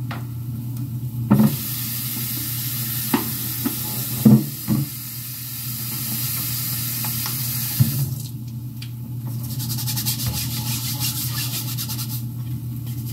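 Breaded chicken frying in a hot pan: a steady sizzle with a few sharp knocks of a utensil against the pan. About eight seconds in the sizzle eases to a lighter crackle.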